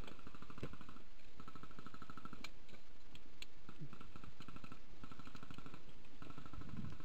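Airsoft electric guns firing on full auto: several rattling bursts of rapid shots with short gaps between, and a few single sharp cracks.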